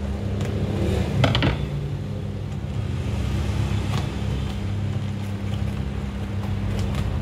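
Scissors snipping through packing tape on a cardboard box, then the cardboard flap being handled, with a few short cuts and scrapes about a second in and around four seconds. A steady low hum runs underneath throughout and is the loudest sound.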